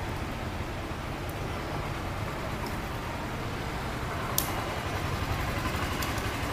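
Steady outdoor background noise with a low rumble, like distant traffic or rain, and one sharp click about four seconds in.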